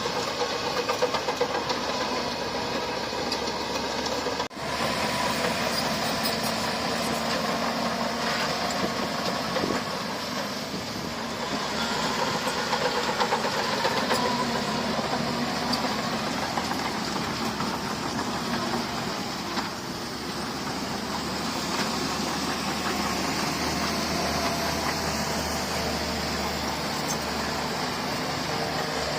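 Heavy earthmoving machine's diesel engine running steadily under work, with a brief break about four and a half seconds in.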